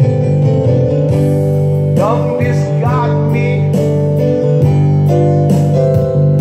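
Strummed acoustic guitar in a slow ballad, played through a Bose S1 Pro portable PA speaker, with a voice singing a phrase from about two seconds in.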